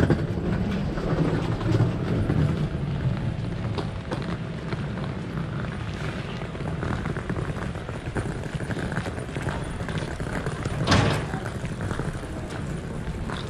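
Footsteps of several people walking across a concrete pad, over a steady low rumble, with a louder thump about eleven seconds in.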